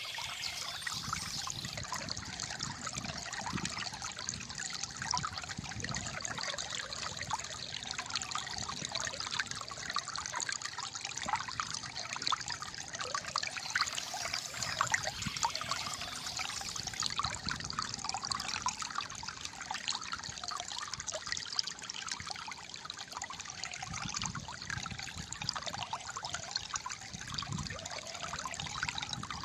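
Small stream of water trickling and gurgling steadily.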